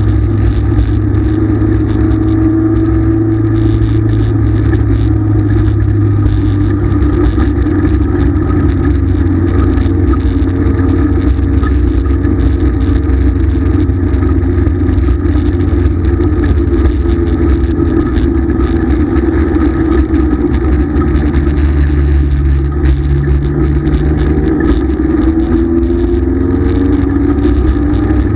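Dirt-track race car's engine running hard, heard from inside the cockpit. Its pitch wavers and rises as the car laps the track, with a clear climb near the end.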